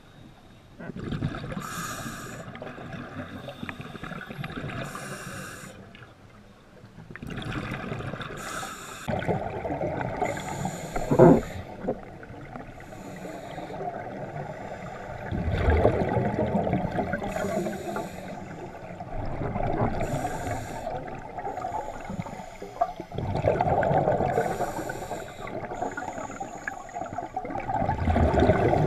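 Scuba diver breathing underwater through a regulator: hissing inhalations and bubbling exhalations in repeated cycles every few seconds. A single sharp knock about eleven seconds in.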